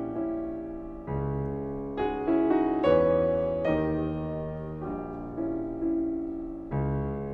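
Piano music: slow chords struck and left to fade, a new one about once a second.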